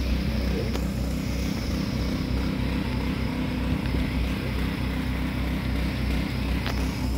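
An engine running steadily: a low drone with an even, rhythmic throb.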